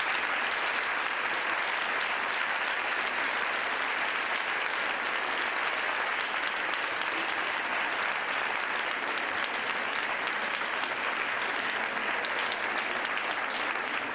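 Audience applauding steadily, a sustained dense clapping from a full hall.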